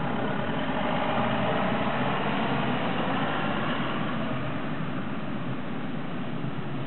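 Heavy vehicle engine running steadily, coming in abruptly and easing slightly after about four seconds.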